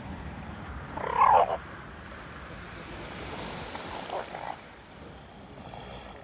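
Young northern elephant seal giving a loud, harsh call about a second in, lasting about half a second, then two fainter calls around four seconds in: an irritated protest at the neighbouring seal.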